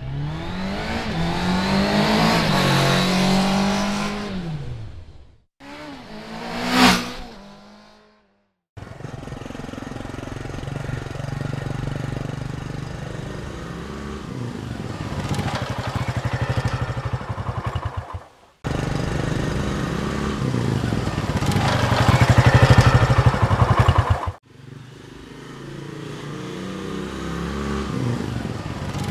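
A run of separate motorcycle engine clips cut one after another: first a bike revving up and falling away, then a quick pass-by that swells to its loudest about seven seconds in, then the engine running steadily with revs rising and falling. Each clip cuts off abruptly.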